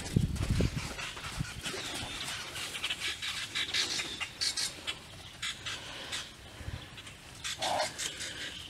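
Welsh pony's hooves thudding dully on the soft dirt of a round pen as it canters, strongest in the first second, with birds chirping throughout. A single short call sounds near the end.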